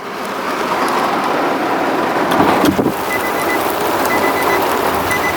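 Steady outdoor road-traffic noise fading in at the start, with a faint high beeping that comes and goes from about three seconds in.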